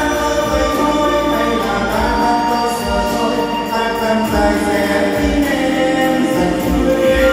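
A man singing a Vietnamese ballad through a microphone and PA speakers over a recorded karaoke backing track with a steady beat.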